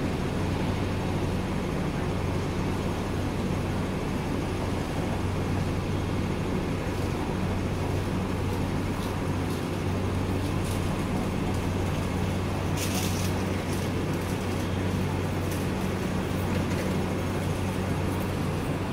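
Street traffic and a steady low hum, heard from the upper deck of a Hong Kong double-decker tram standing still at a crossing, with a short hiss about 13 seconds in.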